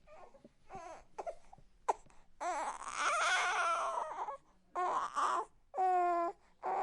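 Newborn baby crying: a few short whimpers, then a long wailing cry about two and a half seconds in, followed by shorter cries with gasps between them.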